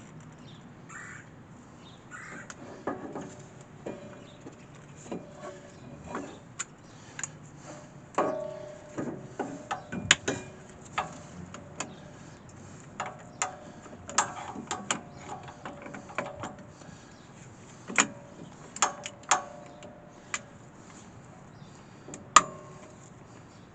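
Plunger-style brake caliper piston tool being worked to press the caliper piston back against the old pad: an irregular run of clicks, creaks and short metallic clinks, with a few sharper clicks standing out.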